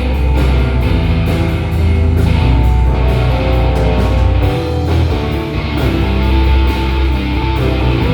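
Live band playing an instrumental passage: bass guitar, drums, keyboards and guitar, with the bass notes and drum hits strong and steady throughout.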